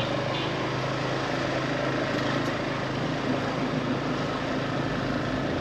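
Motorbike running steadily while being ridden along a road, a steady low engine hum under a rushing wind and road noise.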